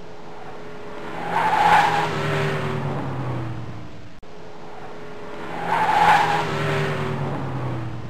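A car sound effect that repeats about every four seconds. The engine hum builds with a rushing noise to a loud peak about two seconds in and again about six seconds in, then fades. There is a brief break where each repeat begins.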